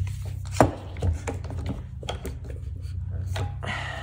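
Irwin Quick-Grip one-handed bar clamps being squeezed tight onto a wood block: a string of irregular sharp clicks and knocks from the trigger and jaws, the loudest about half a second in.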